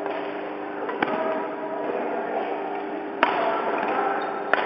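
Badminton rackets striking the shuttlecock in a rally: three sharp hits, about a second in, a little past three seconds and near the end, over a steady hum in a large hall.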